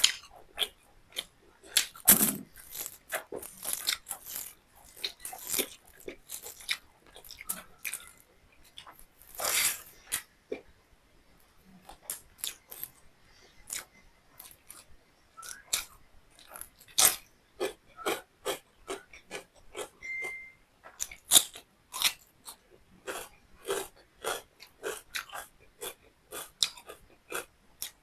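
Close-up chewing and mouth sounds of someone eating beef liver with rice: a steady run of short wet smacks and bites, thinning out for a few seconds about halfway through. A brief high beep-like tone sounds about two-thirds of the way in.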